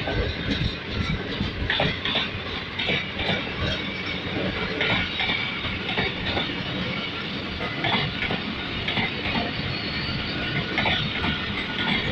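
Passenger train coaches rolling past on a departing train, steel wheels clattering over the rail joints with a steady rumble and irregular clicks and knocks.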